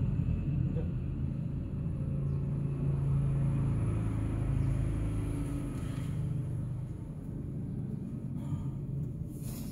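A steady low rumble, with a brief rustling noise near the end.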